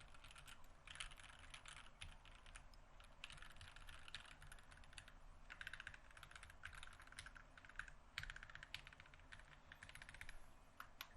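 Fast continuous typing on an NK65 Awaken Edition 65% mechanical keyboard with NK Silk Yellow linear switches, a polycarbonate case and plate, and GMK double-shot ABS keycaps. The rapid key strikes pause briefly a few times and stop abruptly at the end.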